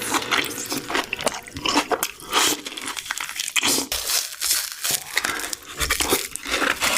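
Close-up crunchy eating: repeated bites and chewing of crisp food, an irregular run of crackles.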